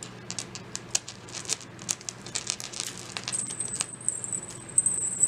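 Small beads and metal charms clicking and jangling against each other as beaded bracelets are handled: an irregular patter of quick clicks. A thin, steady high whine joins in about three seconds in.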